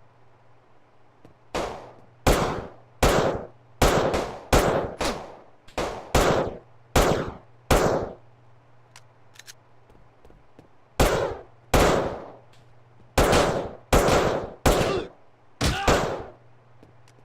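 Two runs of sharp bangs, each fading over about half a second and coming roughly one or two a second: about eleven in the first run, then after a pause of about three seconds, about eight more. A faint steady low hum runs underneath.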